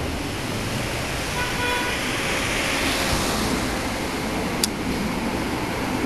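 Steady street traffic noise as an Alstom Cityway tram approaches, with a short horn toot about one and a half seconds in and a sharp click near the end.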